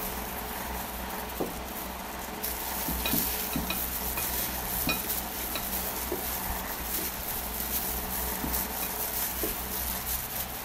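Plastic food-handling gloves crinkling and rustling as hands shape and coat mashed-banana balls over a glass bowl, with scattered light clicks and taps. The rustling gets louder about two seconds in.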